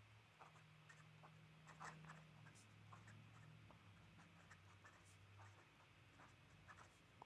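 Very faint scratching of a fountain pen's nib on paper as words are handwritten, in many short strokes, over a faint low hum.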